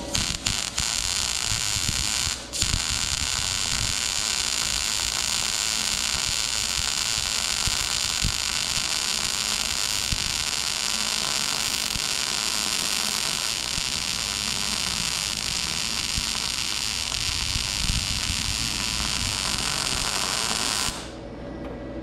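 MIG welding arc from a YesWelder Firstess MP200 running a bead on 1/8-inch mild steel at about 80 amps: a steady crackling sizzle. It stutters briefly at the start and stops and restarts about two and a half seconds in, then runs unbroken until it cuts off suddenly about a second before the end.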